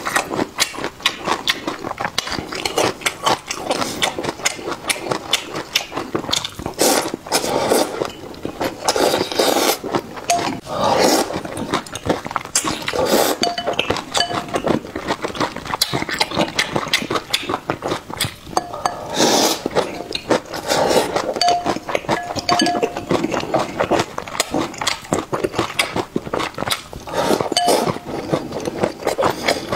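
Close-miked eating of luosifen (river-snail rice noodles in soup): rapid wet chewing and lip smacks, broken now and then by louder slurps of noodles and broth.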